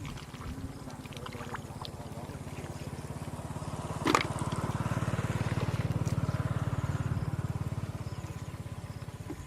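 A small engine running with a rapid, even low pulsing; it grows louder for a few seconds in the middle, then eases off. A single sharp click comes about four seconds in.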